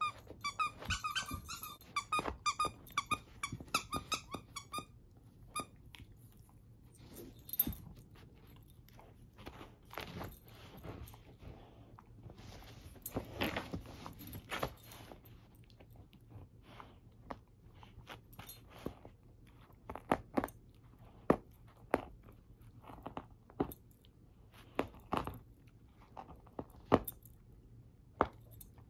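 A dog chewing a fabric plush squeaky toy: the squeaker squeaks rapidly, many times a second, for about the first five seconds. After that come scattered sharp clicks and crunches of chewing on the cloth, with a rustling stretch about halfway through.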